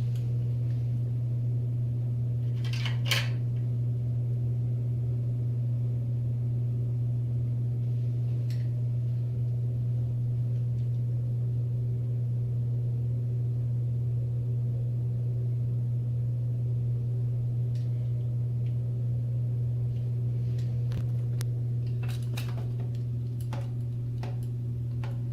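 Steady low hum with faint higher tones over it, and a sharp click about three seconds in and a few faint clicks near the end.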